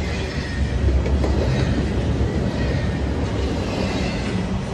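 Double-stack intermodal well cars of a freight train rolling past close by: a steady rumble of steel wheels on the rails, with a faint thin squeal above it.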